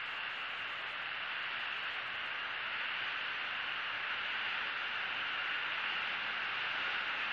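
Steady, even hiss with no distinct events: background noise from an outdoor live-cam microphone.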